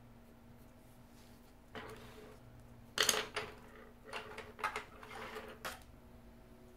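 Pencils being handled at a desk beside an open metal pencil tin: a soft knock, then a sharp clack about three seconds in and several lighter clicks with a short ring, as a graphite pencil is set down and a colored pencil picked up.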